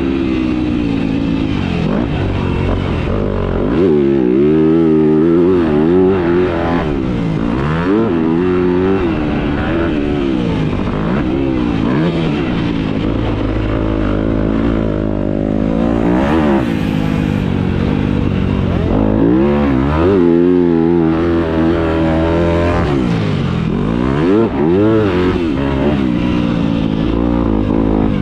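Yamaha YZ250F dirt bike's four-stroke single-cylinder engine ridden hard around a motocross track, revving up and dropping off again and again every second or two as the throttle is opened and shut through the jumps and turns.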